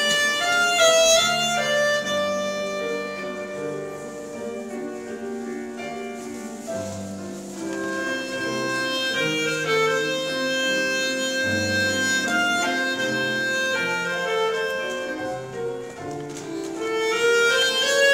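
Clarinet playing a melody with piano accompaniment; the playing grows softer in the middle and swells again near the end.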